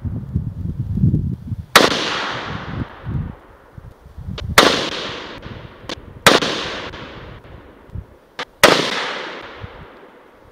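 Four shots from an SKS semi-automatic rifle in 7.62×39, fired one at a time at uneven intervals of about two to three seconds, each trailing off in a long echo. A few much fainter sharp clicks fall between the shots.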